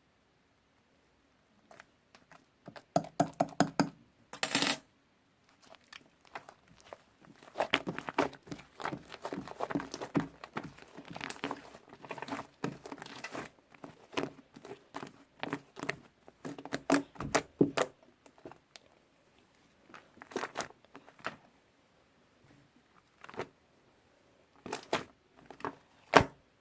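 Soft clay slime being squeezed and pressed by hand, giving dense runs of small sticky clicks and pops, with sparser pops near the end.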